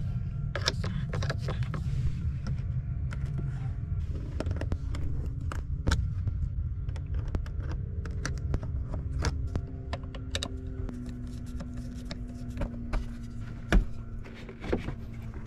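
Scattered clicks and knocks of car parts being handled and pulled out by hand, over a steady low hum.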